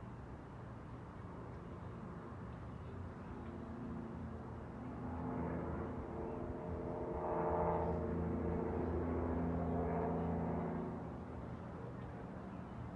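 City traffic hum, with one vehicle's engine growing louder from about five seconds in and fading away about eleven seconds in.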